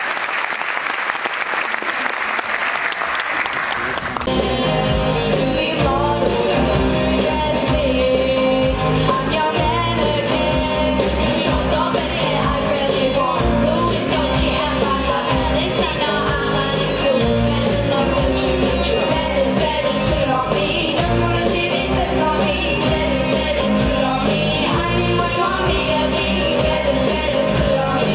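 Audience applauding, then about four seconds in a live band strikes up an upbeat rock-and-roll song with a steady drum beat and singing.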